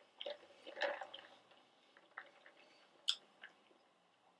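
Drinking through a straw from a paper fast-food cup: a few separate quiet swallowing gulps and wet mouth clicks, the strongest about a second in and a sharp click about three seconds in.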